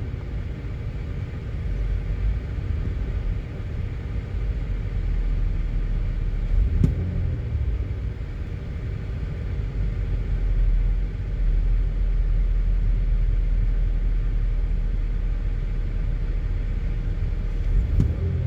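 2008 GMC Acadia's 3.6-litre V6 idling with a multiple-cylinder misfire, a steady low rumble; the misfire comes from cylinder 5, whose ignition coil and spark plug are failing. Two light clicks about seven seconds in and near the end.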